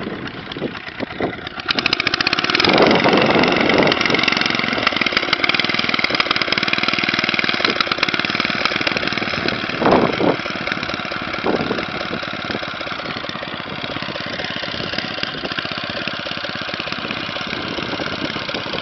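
Kohler K141T single-cylinder engine of a Motostandard Gutbrod walking tractor running. About two seconds in it picks up speed to a faster, louder beat, then settles into steady running.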